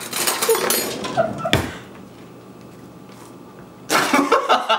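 Handling noise as a block of cream cheese is pulled from its wrapper and scraped out with a knife: rustling and scraping, with one sharp knock about a second and a half in.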